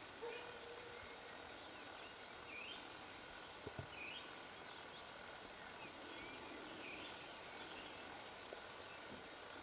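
Faint outdoor ambience with short high chirps repeating about once a second and a single sharp knock a little over a third of the way in.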